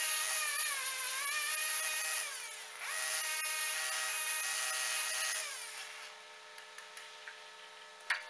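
Petrol rail cutting saw with an abrasive disc cutting through a steel rail: the two-stroke engine's note sags and rises as the disc bites, over a grinding hiss. It breaks off briefly about two and a half seconds in, runs again, then winds down about five and a half seconds in, with a sharp click near the end.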